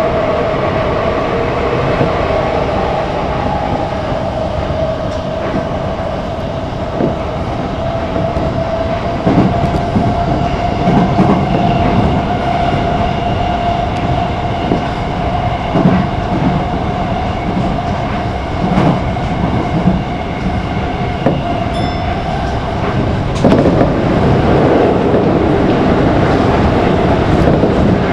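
Commuter train running at speed, heard from inside the leading car: continuous running noise with a steady whine and the clack of wheels over rail joints in the middle. About two-thirds through it gets louder as the train runs onto a steel truss bridge.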